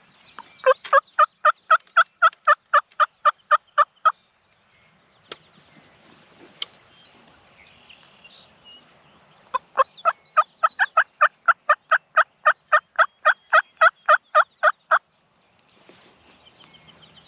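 Hen turkey yelping made on a mouth diaphragm turkey call, loud and close, in two long runs of rapid, evenly spaced yelps at about five a second, with a pause of several seconds between them.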